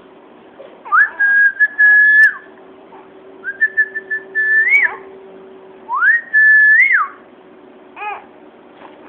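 A person whistling three long notes, each sliding up, holding steady and sliding down again. A brief high squeak follows near the end.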